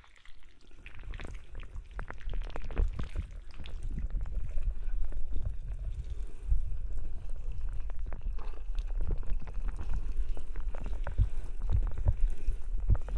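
Binaural ASMR tentacle sounds: wet, sticky squelching and clicking worked close against the microphone, simulating sucker-covered tentacles on the head. The sound is a dense run of small wet clicks over low thumps, growing louder over the first couple of seconds and then staying at that level.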